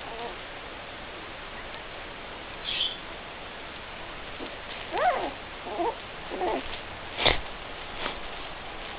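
Puppies whining and squeaking: a short high squeak about three seconds in, then three short whines that slide in pitch between about five and seven seconds in. A sharp knock follows just after the whines, with a fainter one a little later.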